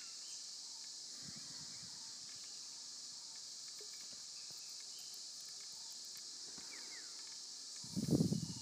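A steady high insect chorus with a few faint bird chirps. Near the end comes a short dull knock as wooden yoga blocks are set down on the mat.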